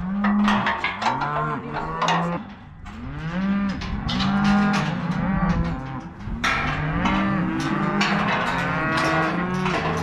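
A herd of cattle bawling over one another, many overlapping moos of different pitches almost without pause, with a short lull about three seconds in. The cows and calves have been sorted into separate pens.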